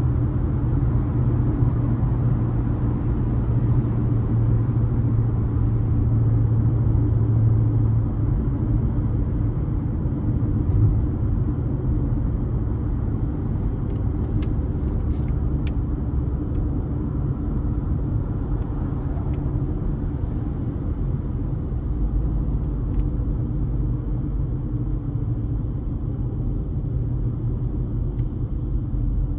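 A car driving on the road: steady engine and tyre rumble, with a strong low hum that eases off about eight seconds in.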